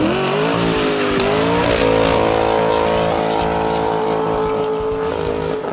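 Vehicle engine revved hard: the pitch climbs at the start, climbs again in a second step, and is held high and steady for a few seconds before easing off slightly near the end.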